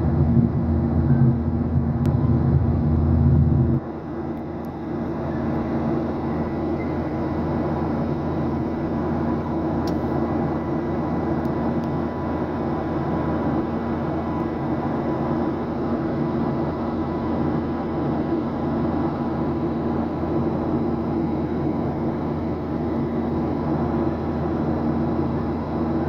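Steady jet airliner cabin noise: the engines' drone and the rush of air heard from a window seat over the wing. A heavier low rumble in the first few seconds drops away suddenly about four seconds in, leaving an even, lighter drone.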